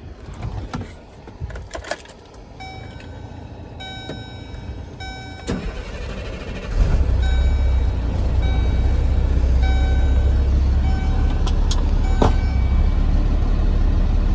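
Cab of a 2005 Chevrolet C6500 truck: a warning chime repeats about one and a half times a second, and about seven seconds in the engine starts and settles into a steady low idle while the chime keeps going for several more seconds.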